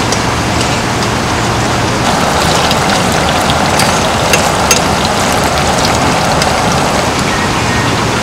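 Steady rain falling on tent fabric, with single drops ticking now and then.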